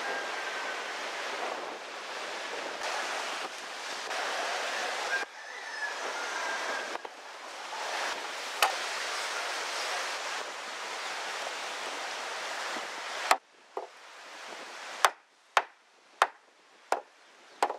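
Steady surf and wind noise. In the last few seconds a hand adze strikes wood about seven times in an uneven rhythm: chopping and trimming the edge of a wooden jukung hull.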